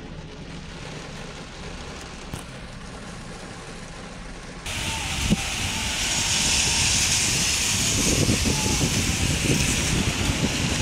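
Muffled rain and a low rumble heard from inside a car, then a sudden change, a little under halfway through, to heavy rain hissing loudly outdoors over a rough low rumble.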